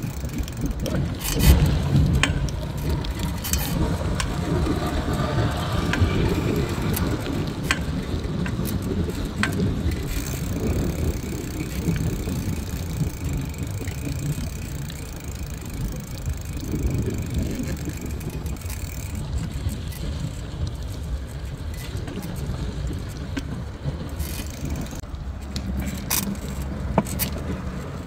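Dense city street traffic: a steady wash of engines and passing vehicles, with scattered short clicks and knocks.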